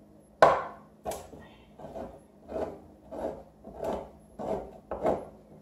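Handheld crank can opener on a metal can: one sharp click about half a second in, then a run of short cutting strokes, about one and a half a second, as the key is turned around the lid.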